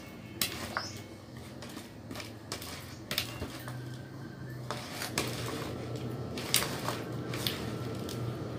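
A metal spoon stirring chopped boiled pork cheek in a plastic bowl: irregular clicks, taps and scrapes of the spoon against the bowl. A steady low hum runs underneath.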